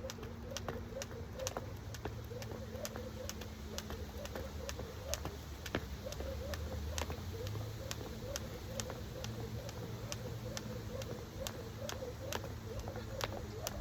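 Jump rope slapping the ground in a steady rhythm, a sharp click about twice a second, over a steady low rumble.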